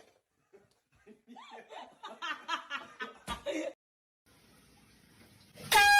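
A person laughing in a string of short bursts, with a sharp click near the end of the laughter. Near the end, an air horn starts a loud, steady, high blast.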